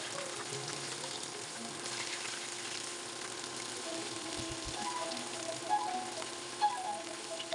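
Breaded pork chops deep-frying in hot oil: a steady sizzle and crackle. Metal tongs and a turner handle the chops, with a couple of brief knocks about two-thirds of the way through.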